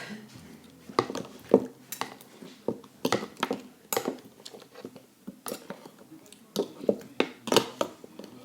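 A utensil clicking and scraping against a bowl in irregular knocks while paint is stirred into slime.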